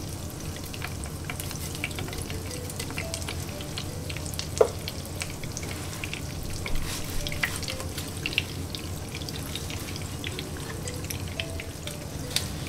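Breadcrumb-coated bream fillet shallow-frying in hot oil in a frying pan: a steady sizzle with scattered pops and crackles.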